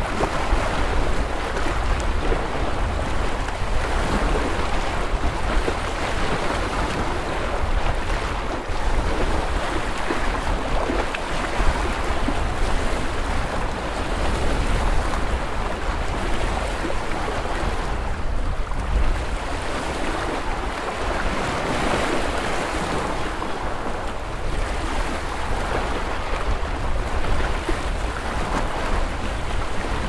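Small waves washing against a lakeshore: a steady rush of water that swells gently every few seconds. Under it runs a low rumble of wind on the microphone.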